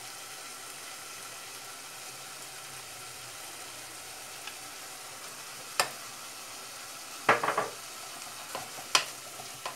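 Diced fish and tomato sizzling in a pot, being lightly sautéed, with a steady hiss while a wooden spoon scrapes and stirs. Sharp knocks of the spoon against the dishes come about six seconds in, as a quick cluster around seven and a half seconds, and once more near nine.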